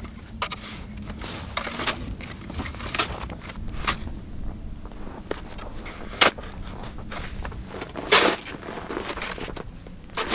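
Snow shovel scooping and scraping through packed snow, with boots crunching, in irregular short crunches; the loudest comes about eight seconds in.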